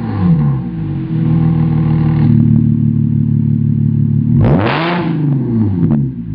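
Audi S4 3.0 TFSI V6 revving through a Fi catless downpipe and valved cat-back exhaust with quad tips. The revs drop off and are held steady for about three seconds. Then one sharp blip rises and falls straight back, and the engine settles lower near the end.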